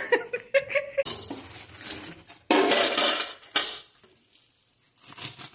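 A plastic bag of raw pork offal rustling and crinkling as it is handled in a stainless-steel bowl in a metal sink, with light clinks of the metal. The rustling is loudest about two and a half seconds in.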